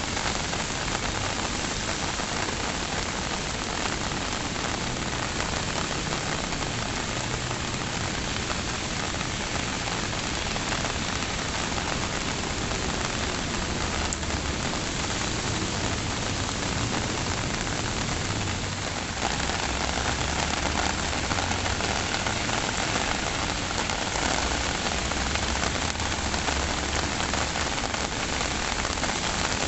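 Steady rain falling, a dense even hiss of drops. It grows a little louder about two-thirds of the way in.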